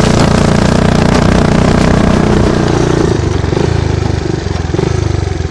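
1985 Honda Big Red 250ES three-wheeler's single-cylinder four-stroke engine running under load while dragging chained logs over gravel, easing off to a lower, pulsing note about three seconds in.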